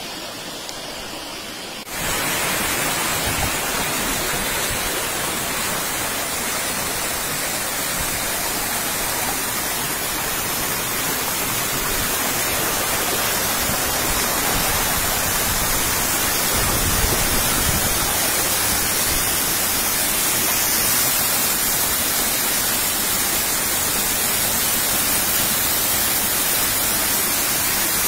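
Steady rushing roar of a waterfall close by: an even wash of falling water that starts abruptly about two seconds in and holds unchanged.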